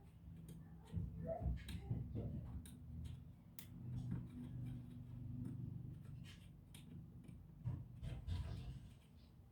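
Light, irregular clicks and taps, typical of small plastic and metal laptop parts and tools being handled during disassembly, over a low steady hum.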